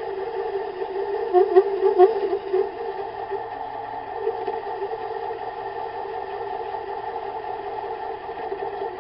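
Metal lathe running steadily, with a short cluster of sharper, louder sounds between about one and two and a half seconds in.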